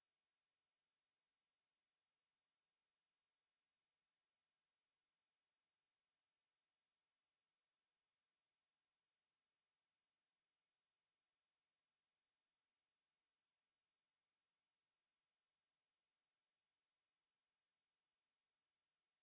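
A pure 7637 Hz sine-wave test tone, one steady high-pitched whistle held at constant level, with no other sound.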